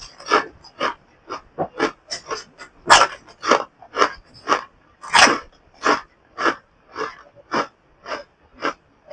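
A person chewing momos noisily with open mouth, wet smacks coming about twice a second, a few of them louder.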